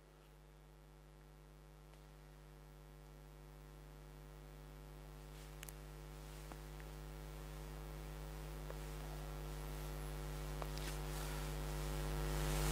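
Electrical mains hum: a steady low buzz with its overtones that grows gradually louder throughout, with a few faint clicks.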